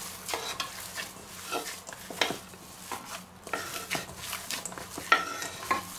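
Gloved hands kneading minced meat in a stainless steel bowl: irregular soft squishing, with short scrapes of hand and meat against the bowl.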